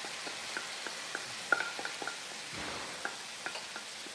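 Ground beef and vegetables sizzling in a skillet while a wooden spatula scrapes and taps beef out of a glass bowl into the pan: a steady sizzle under a string of light clicks and knocks, the sharpest about a second and a half in.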